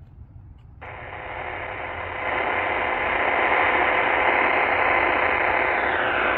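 Qodosen SR-286 AM radio's speaker giving a steady hiss on a vacant frequency (520 kHz), with faint steady whine tones running through it. This is digital hash noise from the radio's own display, a fault found on some units of this model. The hiss cuts in abruptly about a second in and grows louder over the next two seconds.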